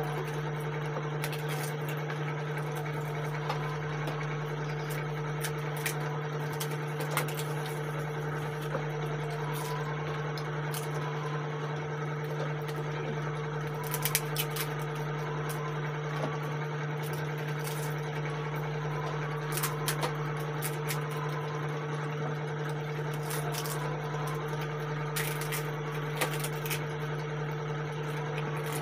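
A steady low hum runs throughout, with scattered small clicks and crackles from people breaking crisp puris and eating them from steel bowls.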